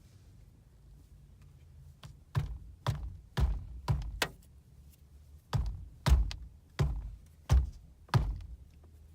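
A run of ten dull, hard knocks, five in quick succession and then, after a short pause, five more, more evenly spaced.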